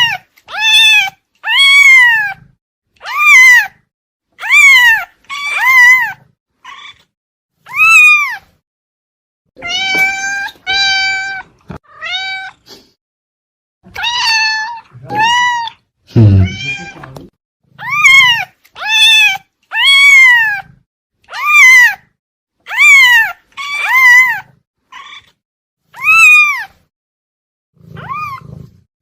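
Domestic cat meowing over and over, short loud meows about one or two a second, each rising then falling in pitch, with a few brief pauses.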